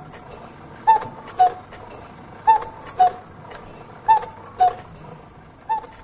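Cuckoo clock calling its two-note "cu-ckoo", a higher note then a lower one, repeated about every one and a half seconds, three and a half times, with faint clicks of the mechanism between the calls.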